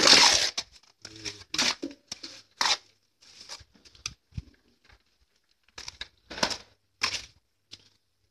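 Irregular short scraping and scuffing sounds, about a dozen separate scrapes with quiet gaps between them.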